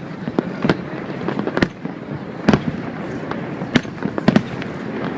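Fireworks exploding in an irregular run of sharp bangs, several of them louder than the rest, over a constant crackle and rumble from the display.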